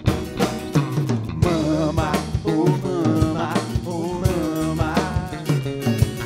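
Rock band playing live: drum kit, electric and acoustic guitars and bass guitar, with a wavering melody line over a steady drum beat.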